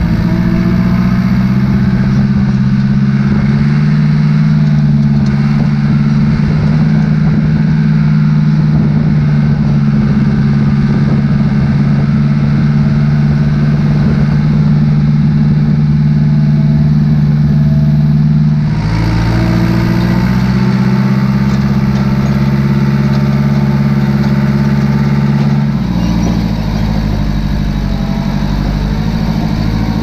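Farm tractor's diesel engine running steadily under way, its note changing abruptly twice, about two-thirds of the way through and again near the end.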